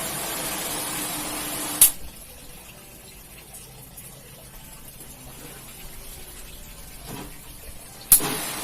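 Pressure washer running: a steady hiss of spray over a low motor hum, cut off by a sharp click about two seconds in. A quieter stretch of faint water noise follows until another sharp click near the end, when the hiss and hum start again.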